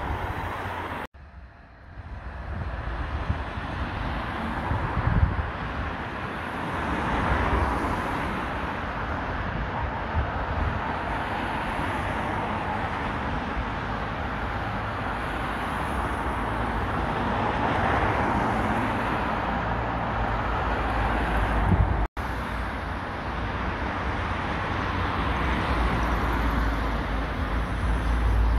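Steady outdoor traffic noise with wind rumbling on the microphone. The sound cuts abruptly twice, about a second in and about 22 seconds in, where separate recordings are joined.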